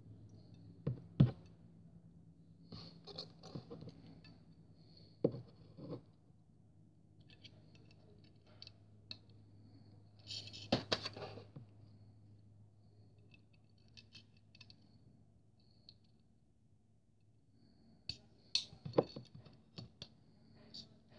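Handling of a plastic model airliner in its moulded plastic packaging tray: scattered plastic clicks, taps and scrapes, with a denser burst of scraping and clicking about halfway through and another near the end.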